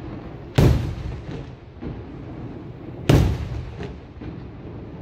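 Aerial firework shells going off: two loud booms about two and a half seconds apart, each trailing off in a long echo, with smaller bangs between.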